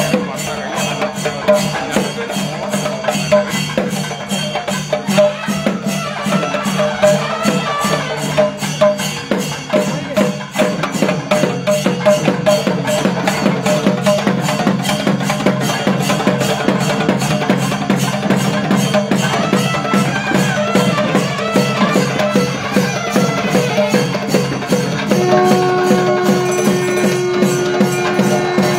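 Temple percussion ensemble playing a fast, steady rhythm of drum strokes over low sustained held tones. Near the end a loud long note with a steady pitch joins in.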